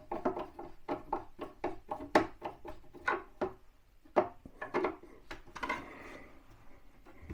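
Irregular light knocks and clicks of wood, with some rubbing, as a kitchen wall cabinet is handled while it is fixed to the wall.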